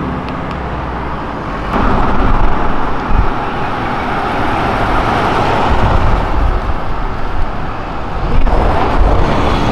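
Road traffic passing: steady engine and tyre noise of cars and a bus, which jumps louder about two seconds in.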